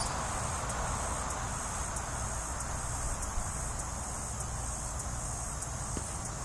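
Steady outdoor background noise with a low rumble, and a faint regular ticking high up, about three ticks every two seconds.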